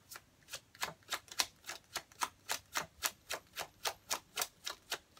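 Tarot deck being overhand-shuffled by hand: a steady run of crisp card slaps, about four a second.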